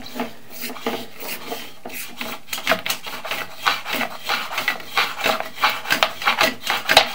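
Sewer inspection camera and its push cable scraping and rubbing in irregular strokes as it is fed down a sewer line, the scraping growing denser and louder about halfway through.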